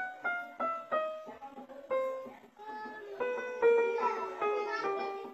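Techno T9880i electronic arranger keyboard played by hand, a note at a time: a quick descending run of single notes, then more notes. Each note starts sharply and fades.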